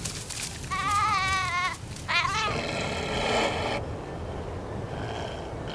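Sheep bleating: a long, wavering bleat, then a short call running straight into a longer, rougher one.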